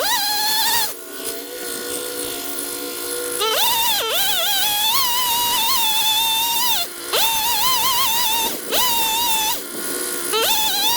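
Chainsaw running at high speed during the tree cut, a high whine that wavers while held for a few seconds at a time. Its pitch drops briefly and climbs back three times as the throttle eases off and opens again.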